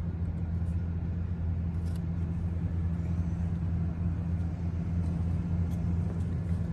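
A vehicle engine idling, a steady low hum that doesn't change.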